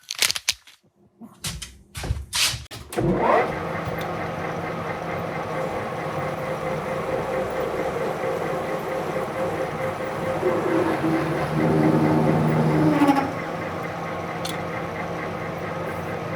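A few knocks, then a machine tool's spindle motor starts with a rising whine about three seconds in and runs steadily. For a couple of seconds late in the middle it gets louder with shifting tones, as the bit cuts a 1/4-inch pilot hole into the steel part.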